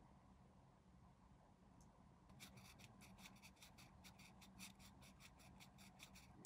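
Faint quick scratching strokes, about five a second, from a hand tool rubbing a small plastic model-kit part. They start a little over two seconds in and stop just before the end.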